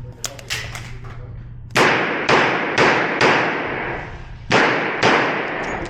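Korth Mongoose .38 Special revolver firing six shots: four about half a second apart, then a short pause and two more. Each shot rings out with a long echo off the walls of an indoor range.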